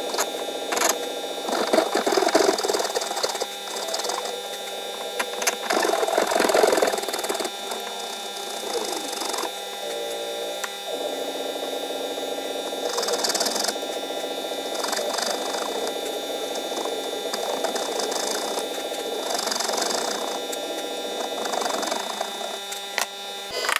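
Hand-tool woodworking sped up in fast motion: rapid, jumbled scraping and rasping of hand saw and chisel work on wood, with repeated bursts of sawing throughout.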